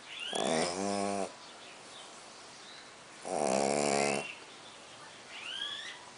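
Pug snoring in its sleep: two loud, rattling snores about three seconds apart. A faint rising whistle leads into each snore.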